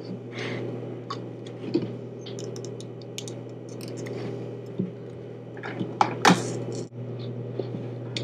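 Hands working at stiff plastic packaging, trying to pry it open: irregular clicks, snaps and rustles over a steady electrical hum, with a louder cluster of snaps about six seconds in.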